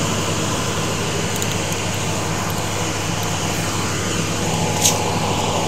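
Steady mechanical hum over a hiss, with one short, sharp sound near the end.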